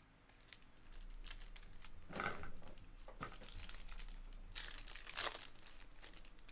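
Foil wrapper of a 2023 Bowman Mega baseball card pack being torn open and crinkled in the hands, in a run of crinkling bursts, loudest about two seconds in and again around five seconds in.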